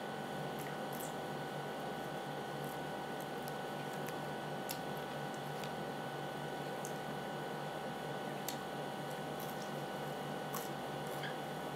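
Close-miked eating: soft wet chewing and mouth sounds while a spoonful of arroz caldo rice porridge is eaten, with small scattered spoon clicks. A steady electrical hum and hiss lies under it.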